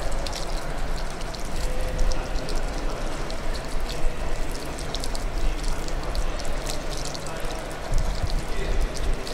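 Scattered hand clapping from a small crowd, in irregular claps over a low rumble.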